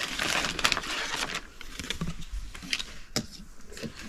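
Handling noise from small items and packaging being moved: rustling for about the first second and a half, then a few light clicks and taps.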